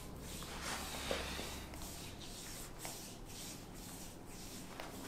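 Hands massaging a bare back: soft, repeated rubbing swishes of palms and fingers kneading over skin.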